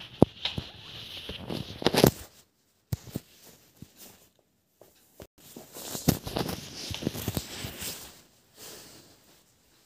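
Plastic clicks and clatter of a triangular Rubik's puzzle (Pyraminx) being twisted by hand, in uneven bursts with a few short pauses.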